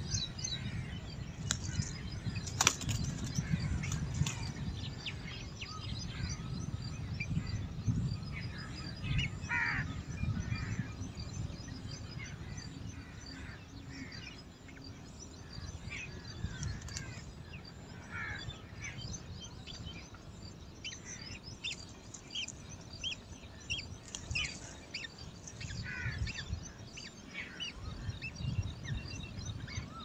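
Outdoor birdsong: many short chirps and calls from several small birds, scattered throughout, over a low rumble. A single sharp click comes about three seconds in.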